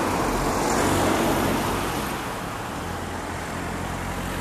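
Road traffic noise: a vehicle goes by, swelling about a second in and fading, then a steady low hum stays under it.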